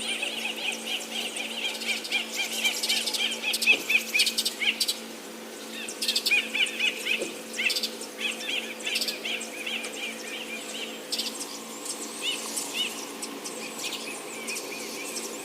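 High chirping calls in quick runs, with a short break about five seconds in, over a steady low hum.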